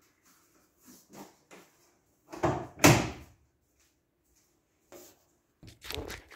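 Door of a Samsung front-loading washing machine being shut: two thuds in quick succession about two and a half seconds in, the second the louder, amid light knocks and rustles of laundry being handled.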